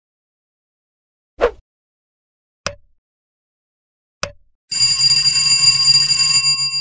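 End-screen sound effects: a short pop as a word appears, two clicks like a mouse button, then a notification bell ringing with a quick pulsing trill for about two seconds, fading near the end.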